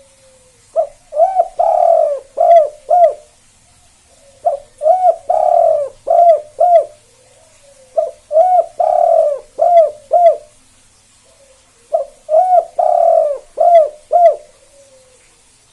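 Spotted dove (tekukur) cooing its 'kuk 2' song: four repeated phrases about every four seconds, each a short note, a longer drawn note and a few short clipped coos at the end.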